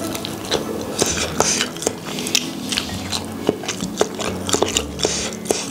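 Close-up eating sounds of sauced fried chicken being bitten and chewed, with wet smacking and sharp clicks, and chopsticks tapping a stainless steel tray, over soft background music.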